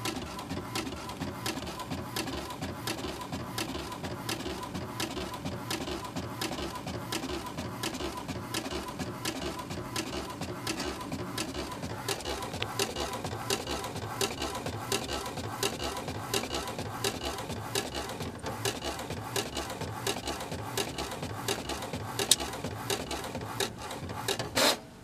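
Home printer printing a page: a continuous run of rapid mechanical clicks and whirring over a faint steady hum, with one sharper click near the end.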